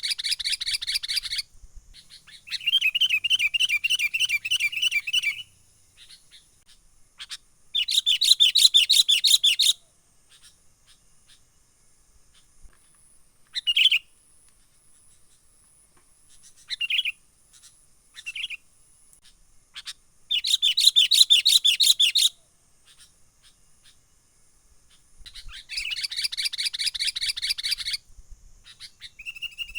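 Sooty-headed bulbul (kutilang) in the 'menggaruda' lure call: five bursts of fast rattling chatter, each two to three seconds long, separated by pauses with a few short single notes. A faint steady high hiss sits underneath.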